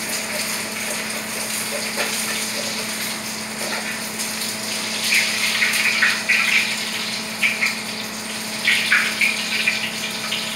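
Food frying in a pan on a gas stove, a steady sizzling hiss, with bursts of a metal spatula scraping the pan about halfway through and again near the end.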